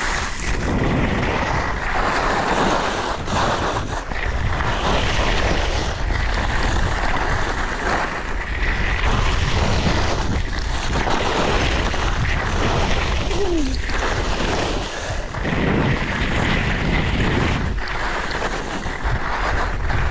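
Wind rushing over an action camera's microphone during a downhill ski run, mixed with the hiss and scrape of skis carving across chopped-up packed snow. The rushing swells and eases every second or two as the skier turns.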